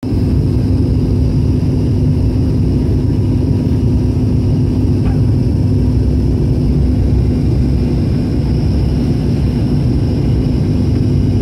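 Cabin noise of an ATR 72 turboprop airliner on approach: the engines and propellers give a loud, steady low drone with a constant hum running through it, heard from inside the cabin.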